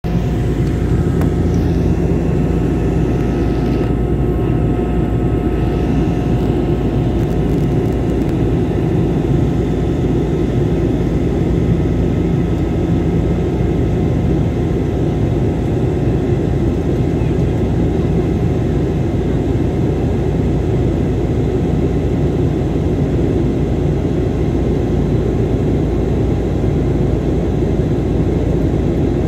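Steady cabin drone of a high-wing airliner in flight: engine and air noise, with a few faint steady tones over it and no change in level.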